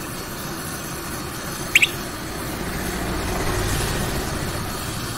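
Steady rushing of two gas flames, a gas welding torch and a butane canister blowtorch, heating a steel pipe joint for brass welding with a filler rod. The rush swells a little in the middle, and a brief high double squeak comes about two seconds in.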